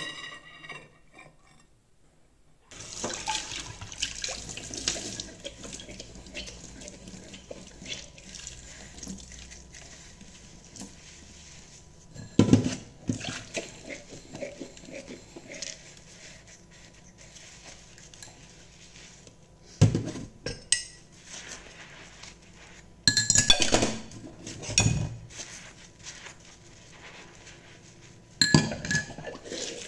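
Dishes being washed by hand at a kitchen sink, starting about three seconds in: water running with the clatter of crockery and cutlery, and several sharp knocks as dishes are handled.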